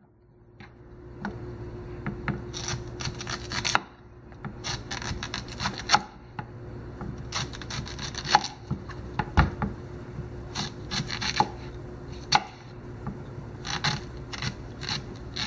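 Short Mora knife slicing patty pan squash on a wooden cutting board: irregular sharp knocks as the blade cuts through and strikes the board, with scraping between. The short blade is working hard through the firm squash. A faint steady hum underneath.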